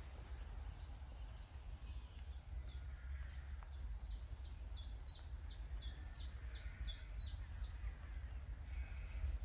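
A small bird singing a run of about fifteen quick, repeated high notes, each dropping in pitch, about three a second, starting about two seconds in and stopping near the end, over a steady low rumble.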